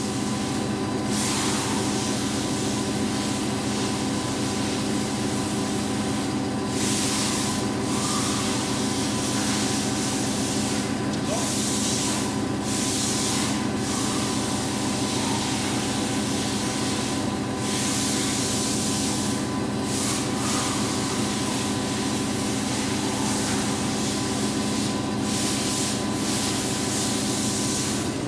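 Lucas 542B-84 horizontal boring mill running as its quill is moved: a steady hum from its drives with a hiss that surges up every few seconds for a second or two.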